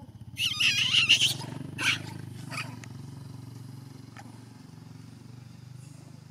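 Young macaque screaming: a run of loud high-pitched squeals lasting about a second, then two short cries, over a steady low drone.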